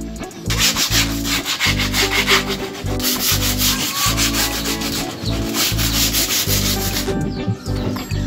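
Hand sanding: sandpaper rubbed back and forth in quick strokes along the cut edge of a plywood board, stopping about a second before the end.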